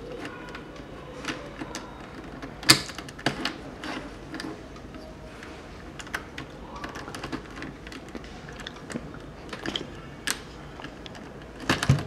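Small plastic clicks and taps of Rubik's Cube pieces being handled and slid into place in the partly assembled cube, with the sharpest click about three seconds in and a short cluster near the end.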